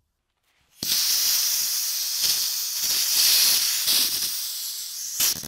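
Pressurised CO2 gas hissing out of a solenoid valve and adapter fitted to a CO2 cartridge, starting abruptly about a second in and cutting off just before the end. The valve cannot hold the cartridge's roughly 800 PSI.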